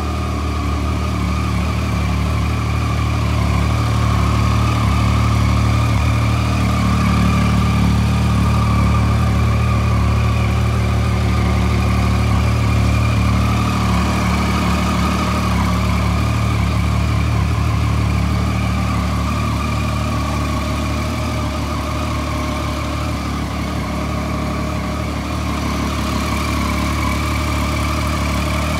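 Triumph Street Triple 675R's 675 cc three-cylinder engine idling steadily.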